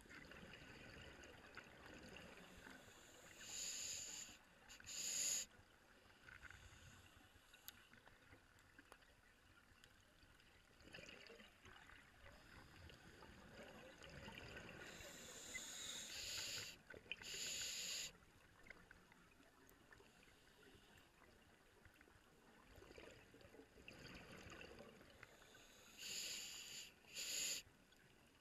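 Scuba diver breathing through a regulator underwater: a rushing burst followed by a shorter one, repeating three times about every eleven seconds, over faint underwater hiss.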